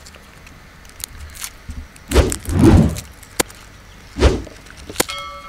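Garlic cloves being peeled by hand over a wooden chopping board: dry papery skins rustling and cloves clicking on the board, with dull thumps about two seconds in and again a little past four seconds. A short pitched tone sounds near the end.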